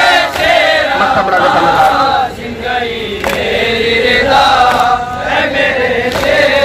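Large crowd of male mourners chanting a noha in unison, with hand strikes of matam on the chest about every second and a half.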